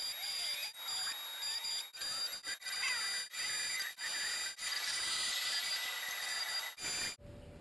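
Electric arc welding on steel: a crackling, hissing arc with a steady high whine, broken off briefly about eight times between welds.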